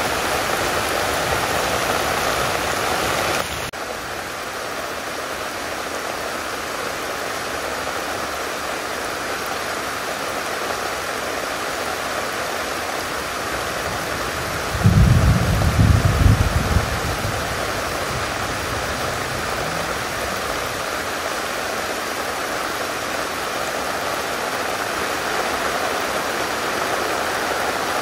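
Steady rain falling, with a low rumble lasting about two seconds around the middle.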